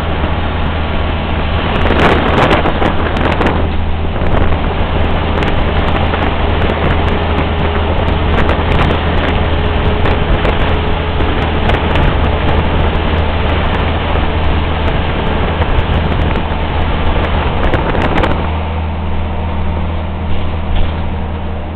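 Ride noise inside a moving articulated trolleybus: a steady low hum under the rush of tyres on the road, with frequent light rattles and clicks. It grows louder for a moment about two seconds in and eases off near the end.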